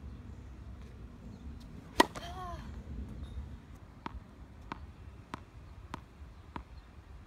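Tennis ball bounced by hand on a hard court in a pre-serve routine, five short bounces about 0.6 s apart in the second half. Before them, about two seconds in, comes one loud sharp hit with a brief ringing tail.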